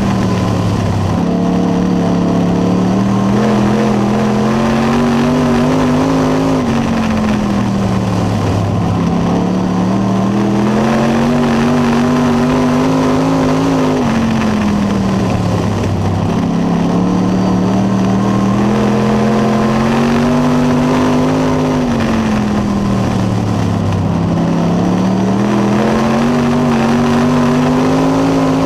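Dirt late model race car's V8 engine heard from inside the cockpit. It revs up and eases off in a regular cycle about every seven to eight seconds as the car accelerates down the straights and lifts for the turns.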